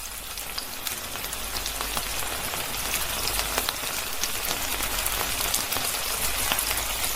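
Steady hiss and patter of falling water, thick with tiny drop clicks, starting abruptly.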